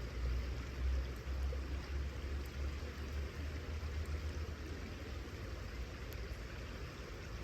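Wind buffeting the microphone outdoors: a low, fluctuating rumble that is strongest in the first few seconds and eases after that, over a steady hiss.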